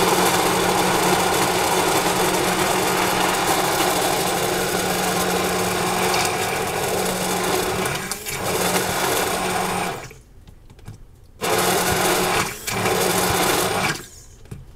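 Immersion (stick) blender running in its tall beaker, blending thick avocado ranch dressing. It runs steadily for about ten seconds, stops, then runs again in two short bursts and stops near the end.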